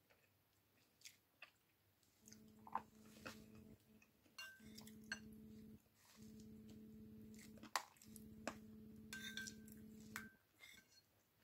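Close-up eating sounds: chewing, lip smacks and soft squishes as chicken is eaten from a bowl of rice porridge, with a few light clinks of a metal spoon against the bowl. A low steady hum starts and stops several times underneath.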